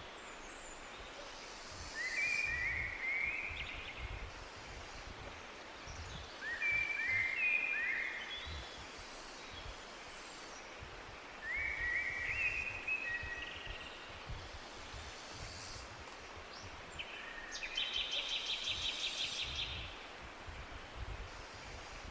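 Birdsong: a bird sings a short phrase of quick, stepped, rising whistled notes three times, a few seconds apart. Near the end comes a louder, rapid pulsed trill, over a faint steady rush of background noise.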